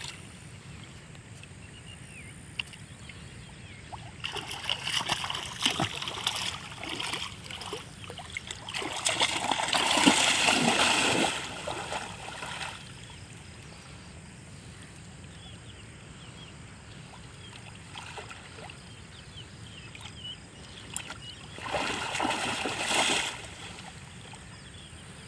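River water splashing and sloshing in several bursts, the longest and loudest about ten seconds in and another near the end, over a steady background wash.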